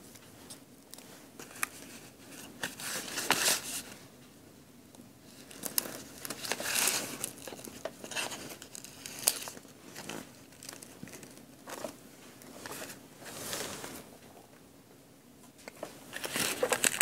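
Crinkling and rustling of paper and hook-side Velcro pieces being handled and cut in half with scissors, in several short spells with light clicks between.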